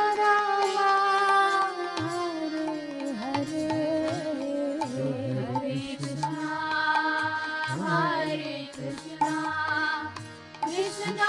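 Devotional kirtan music: a melody sung with gliding ornaments over harmonium and a mridangam drum beat.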